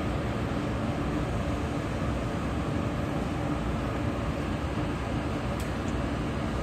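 Steady hum of a stationary Taiwan Railway EMU500 electric multiple unit, with a faint click about five and a half seconds in.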